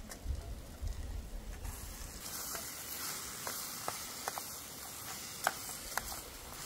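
Chicken and biryani masala frying, a steady sizzle that swells about two seconds in, with scattered sharp pops and ticks.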